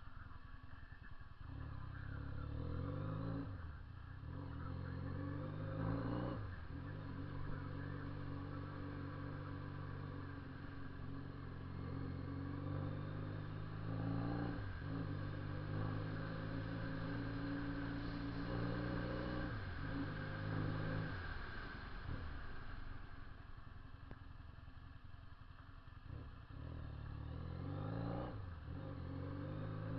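Honda CB 400 II motorcycle's parallel-twin engine and loud exhaust running while ridden, the engine note held for stretches of a few seconds and dropping out briefly several times, as between gear changes.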